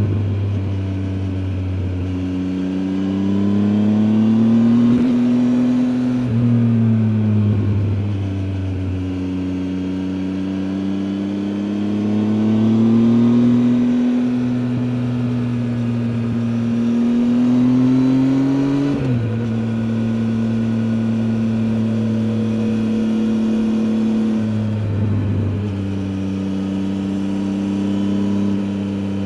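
Triumph Tiger 800 XCA's inline three-cylinder engine heard onboard while riding, its pitch rising as it pulls and falling back with the throttle, with sharp drops a few times.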